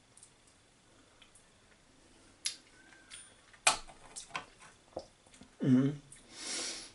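A metal spoon clicking and scraping against a glass jar, a run of sharp clicks, then a short vocal sound and a breathy hiss near the end.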